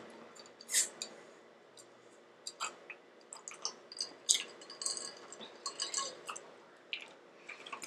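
Sips and swallows from a glass of ice water, with small clinks of ice against the glass and scattered soft clicks.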